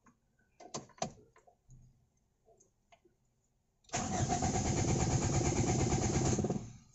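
Car engine cranked on its starter motor for about two and a half seconds, a fast even churning that stops without the engine catching: a hard-starting engine failing to start. A few light clicks come before it.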